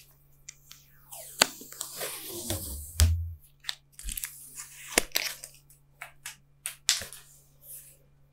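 Protective plastic wrap crinkling and crackling as it is peeled off a Mac Mini by its pull tab, with a few sharp snaps and a dull handling knock along the way.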